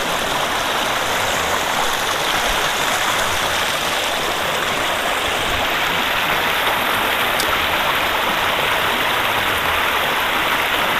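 Shallow, rocky stream running over stones: a steady, unbroken rush of water.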